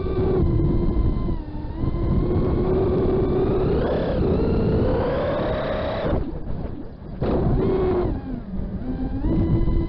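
FPV racing quadcopter's brushless motors and propellers whining, with the pitch following the throttle: it rises about four seconds in, cuts out sharply around six seconds as the throttle is chopped, and comes back after about a second. A low rumble of wind on the onboard microphone runs under it.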